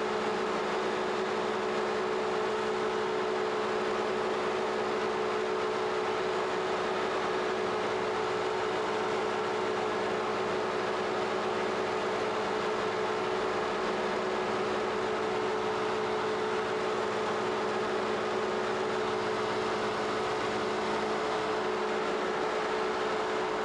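Clausing Kondia CNC knee mill's spindle and end mill cutting a metal test block: a steady, even machine tone that holds one pitch.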